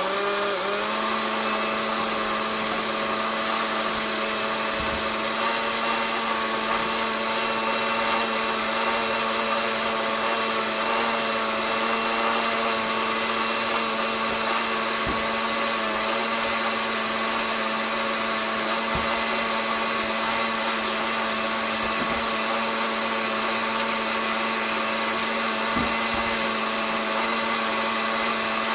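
Electric kitchen blender running steadily, mixing a liquid bread batter; its motor comes up to a steady speed in the first second and then holds an even hum.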